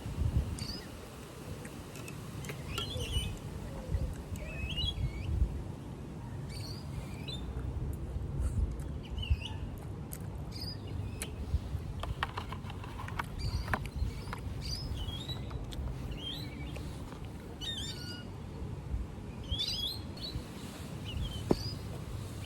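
Small birds chirping, many short separate calls through the whole stretch, over a low rumble.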